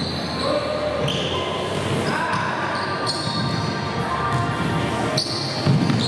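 Basketball game play in a gym: the ball bouncing on the court several times, with crowd voices and the echo of a large hall.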